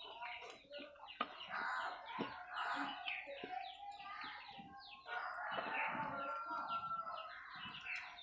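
Birds calling and chirping in quick runs of short, falling notes, with a few sharp clicks among them.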